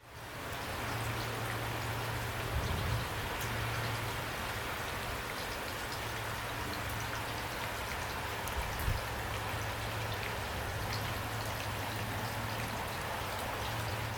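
Heavy rain falling steadily, a dense even patter, over a low steady hum. Two soft low thumps come about three seconds in and again about nine seconds in.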